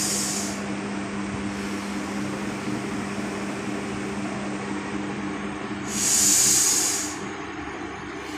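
Kapalbhati pranayama breathing: two forceful, hissing breaths about six seconds apart, the second the louder and longer, over a low steady hum.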